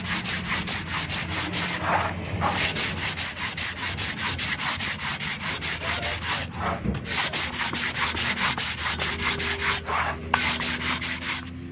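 Sandpaper wrapped around a flat block scrubbed quickly back and forth across the face of a brake disc: a fast, even run of scraping strokes with short breaks about two, seven and ten seconds in, stopping just before the end. The disc is being sanded clean of rust and glaze to restore braking grip.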